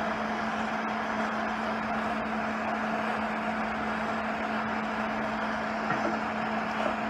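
Handheld gas torch burning steadily, its flame playing on cast iron to preheat a stove leg joint before welding, with a steady hum underneath.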